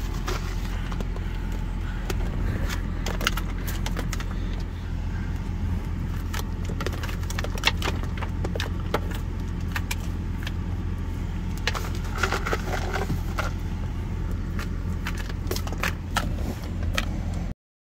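Pickup truck engine idling with a steady low hum. Over it come scattered sharp clicks and taps as an ostrich's beak pecks feed pellets from an open hand.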